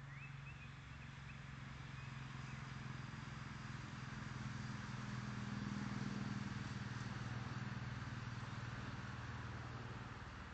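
An engine running steadily with a low hum that grows louder to a peak about six seconds in, then fades again.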